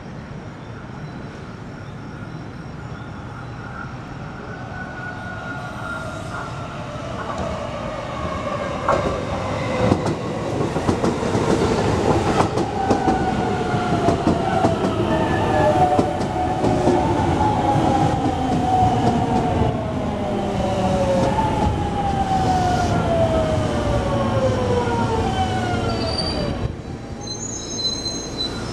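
JR West 207 series 1000-subseries electric train pulling into a station and braking to a stop. The wheels on the rails grow louder from about six seconds in, and the traction inverter's whine falls steadily in pitch as the train slows. The whine cuts off abruptly about two seconds before the end.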